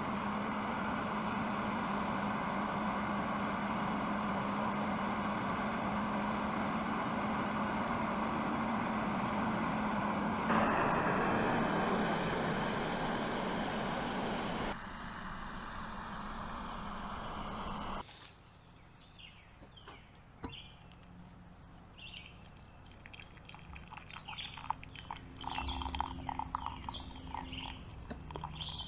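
Small gas backpacking stove burning steadily under a kettle of boiling water. The sound changes about ten seconds in, drops somewhat a few seconds later, and cuts off suddenly about two-thirds of the way through as the stove is shut off. After that come quieter light clinks and handling sounds.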